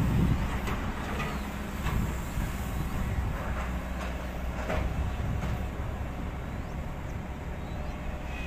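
Steady low rumble of water pouring through the open spillway gates of the Narmada Dam, with a few faint clicks.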